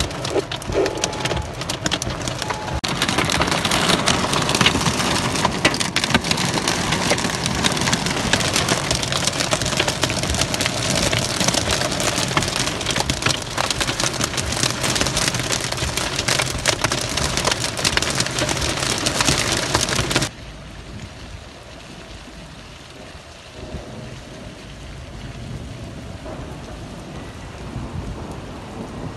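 Heavy downpour drumming on a car's roof and windshield, heard from inside the car as a loud, dense patter. About 20 seconds in it cuts abruptly to a quieter, steady hiss of rain and water on a flooded street.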